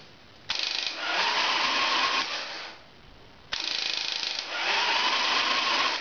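Evo Sportster 1200 starter motor cranking the V-twin engine with its spark plugs removed, in two bursts of about two seconds each. It seems to lack power, a fault traced to bad battery cable leads.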